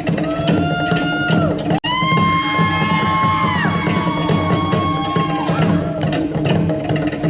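Music with a steady beat, guitar and drums, and long held notes over it. It cuts out for an instant about two seconds in.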